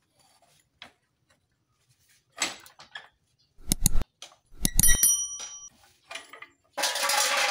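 Metal tools and steel parts clanking during motorcycle engine disassembly. Two heavy knocks come a little over three seconds in, then a clink that rings on briefly, and a harsher metallic rattle near the end.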